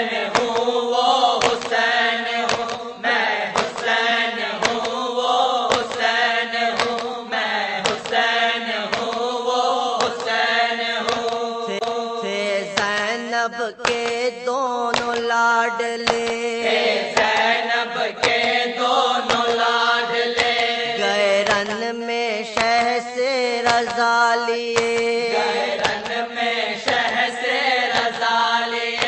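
A marsiya, an Urdu Moharram elegy, chanted in a mournful melody over a steady held drone, with a regular beat, a little under one a second, running under it.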